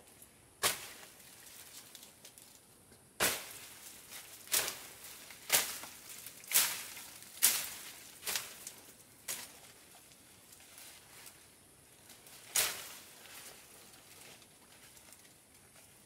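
A series of sharp chopping blows. One comes about half a second in, then a run of seven about a second apart starts about three seconds in, and one more follows later.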